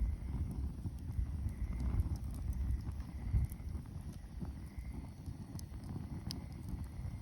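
Campfire crackling: irregular sharp pops and snaps from the burning wood over a steady low rumble.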